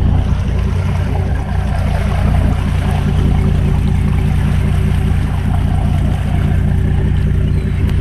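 Fishing charter boat's engine running steadily, a constant low hum.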